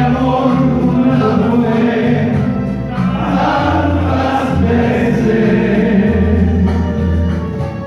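Music: several voices singing together in harmony over a steady low accompaniment, held notes that change every second or so.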